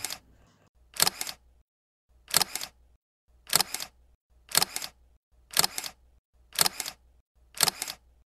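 Camera shutter clicks: a quick double click repeated about once a second, seven times.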